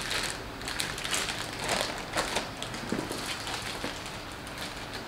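Thin clear plastic bags holding grey plastic model-kit sprues crinkling and crackling as they are handled and lifted out of the box, in irregular rustles with sharp crackles.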